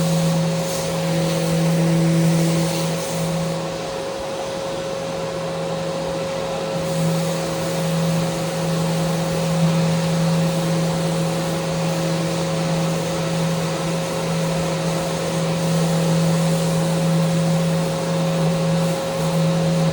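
Electric power sander running steadily against a wooden handrail: a constant motor hum under an even sanding hiss, rising and falling slightly as it is worked along the rail.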